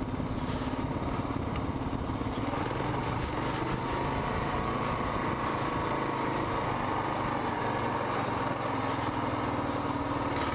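Kawasaki KLR650's single-cylinder four-stroke engine running steadily as the dual-sport motorcycle rides along a dirt trail, its pitch holding fairly even with only slight rises.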